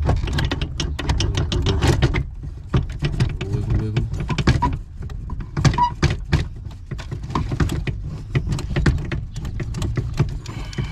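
Irregular metallic clicks and knocks of a steering column mounting bracket and its bolt being handled and worked loose under a truck's dash, over a steady low rumble.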